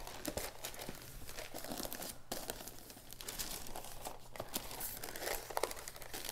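Tissue paper crinkling and rustling in irregular bursts as sheets are lifted and unfolded by hand from a gift box.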